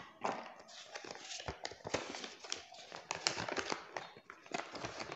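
Paper rustling and crinkling as a folded paper instruction card is pulled from a small cardboard box and unfolded, with irregular small ticks and taps.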